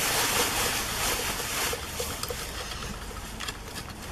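Rustling hiss of hands handling thin antenna and video cables, louder for the first couple of seconds and then dropping, with a few light clicks later.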